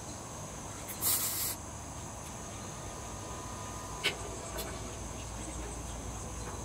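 Steady high-pitched insect chorus, with a short hiss about a second in and a single click near four seconds.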